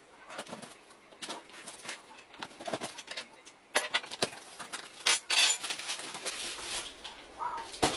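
Cardboard shipping box being opened by hand: a knife scraping and slitting the packing tape, then the cardboard flaps pulled open with louder rustling and scraping a little after five seconds in, and a hand rummaging inside the box.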